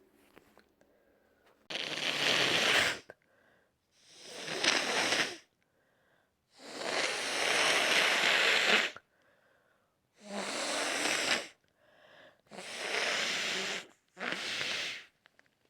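A person with a head cold blowing a congested, snotty nose into a tissue: six blows, the third the longest at about two seconds.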